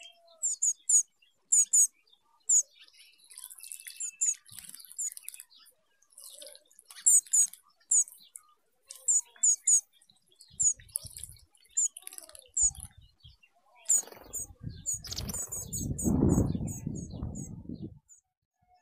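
Small cage birds, canaries and finches, chirping in an aviary: many short, sharp, high chirps, often in quick pairs, scattered throughout. About three quarters of the way in, a louder low rustling rumble lasts several seconds.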